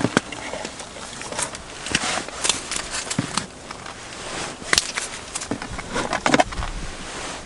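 Scattered rustles, scrapes and light knocks of a person kneeling on snow handling fish and fishing tackle, with one sharper click a little under five seconds in.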